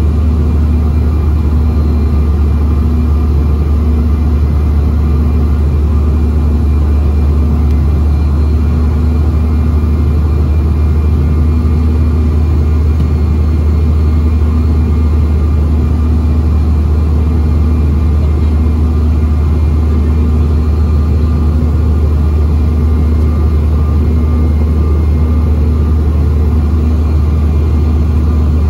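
Steady cabin noise of a Bombardier CRJ-900 regional jet in flight: the drone of its rear-mounted turbofan engines and the rush of air over the fuselage, a deep, even hum with a faint higher tone that comes and goes.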